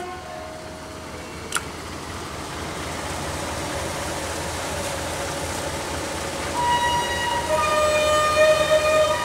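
Inside the cab of the SM42 diesel shunter: the locomotive's running noise building up steadily, with a sharp click about one and a half seconds in and steady whining tones at a few pitches coming in over the last couple of seconds.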